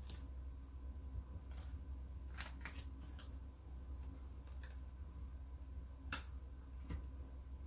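Metallic vinyl being weeded with a hook tool: scrap pieces are picked and peeled off the carrier sheet, giving about ten short, irregular clicks and rustles. A steady low hum runs underneath.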